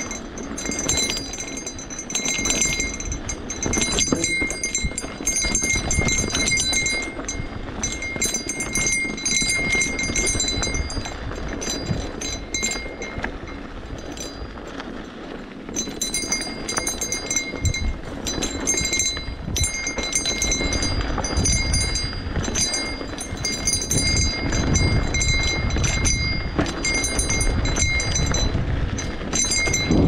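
Continuous rattling and crunching of movement along a dirt trail, with wind rumble on the microphone and a fast, high-pitched ticking buzz that drops out for a few seconds around the middle.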